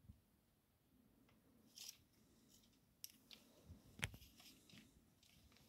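A ferret scrambling over a wooden dresser top and into a plastic tub of small items: faint scratching and rustling with scattered small clicks and knocks, the sharpest knock about four seconds in.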